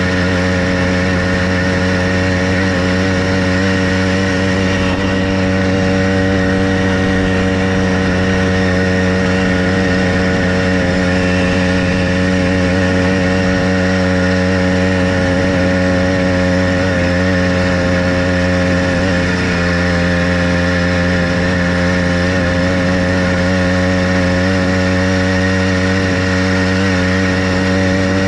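Motorized bicycle's small single-cylinder engine running at a steady speed, its pitch holding even.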